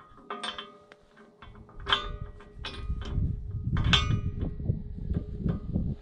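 Steel hitch parts of a middle buster implement clanking and ringing as it is fitted to a tractor's three-point hitch: several sharp metal clanks, the loudest about two and four seconds in, over a low rustling that starts about a second and a half in.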